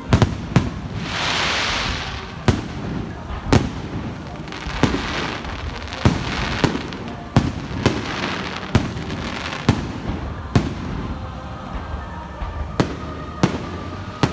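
Aerial firework shells bursting close by: about fifteen sharp bangs, roughly one a second and some in quick pairs. A long crackling hiss follows the first bursts.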